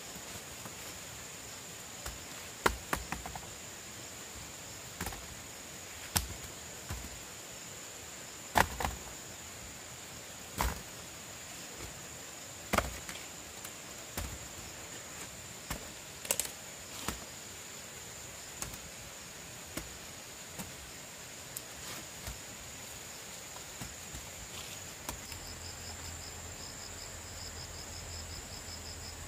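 Sharp chopping knocks at irregular intervals, about one every two seconds, over a steady high-pitched insect drone. Near the end a cricket starts a fast, even chirping.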